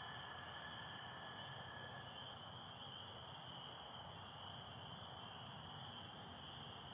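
Night chorus of spring peepers, a dense steady high-pitched peeping, with an American toad's long, even trill underneath that stops about two seconds in.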